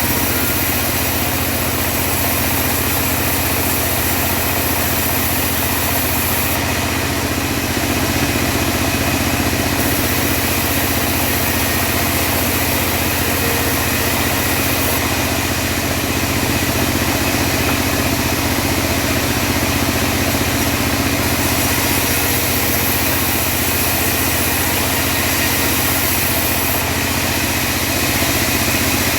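Home-built bandsaw mill running steadily as it rips teak. A high hiss comes and goes every few seconds over the drone of its engine.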